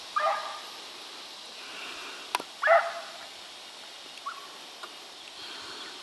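A beagle barks twice, short yelps about two and a half seconds apart, with one sharp click just before the second.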